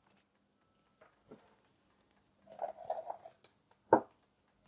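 Air fryer basket being handled and pushed into the machine: faint clatter around three seconds in, then one sharp clunk just before four seconds as it seats.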